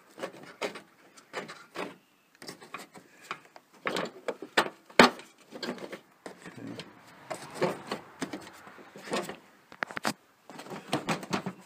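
Parts being handled and fitted back into place on a car's front end: irregular clicks, light knocks and rubbing, with one sharp knock about five seconds in.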